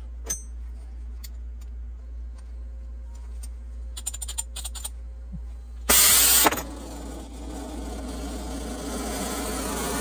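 Gas torch being lit: a few clicks and ticks, then a loud burst as the gas ignites about six seconds in. This is followed by the steady hiss of the burning flame, which grows slightly louder near the end as the flame is adjusted.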